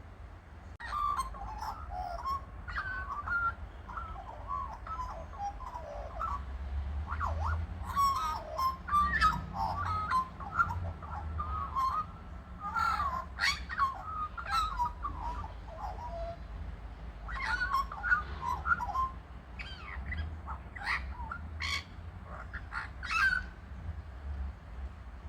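Birds calling in bursts: fluting, warbling phrases with gliding notes, mixed with short harsh clacking notes, with brief lulls about six and sixteen seconds in.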